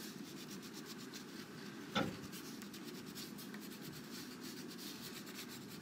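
Brown wax crayon rubbing back and forth on paper as a tree trunk is colored in, a steady faint scratching. A single short knock about two seconds in.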